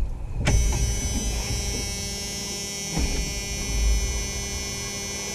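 A click about half a second in as the truck's ignition key is turned, then a steady, high electric-motor whine with a buzz in it, typical of the electric fuel pump or starter on the LS-swapped Dakota's first start attempt. The engine does not fire.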